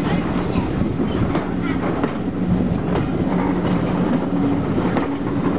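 A passenger train's coaches rolling along the platform, with a steady low drone and scattered sharp clicks of the wheels over the rail joints.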